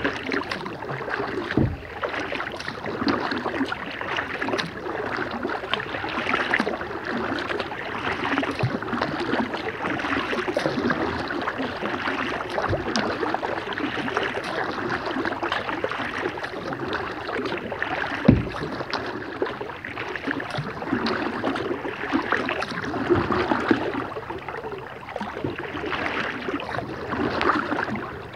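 Water splashing and dripping around a plastic kayak being paddled on calm water, a steady crackle of small splashes, with three dull knocks along the way.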